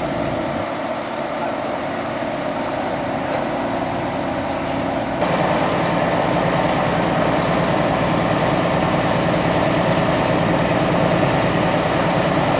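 An engine running steadily at idle, which suddenly gets louder about five seconds in and holds there.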